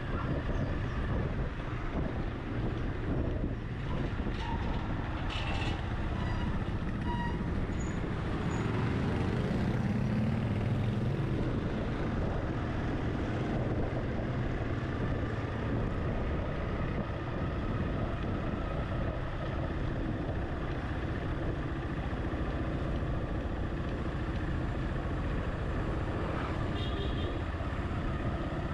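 Car driving on a street: a steady low rumble of engine and tyre noise.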